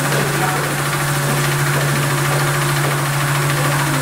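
Electric polishing lathe running with a steady low hum as a cloisonné enamel vessel spins against a hand-held polishing stone under running water, with a continuous hiss over the hum.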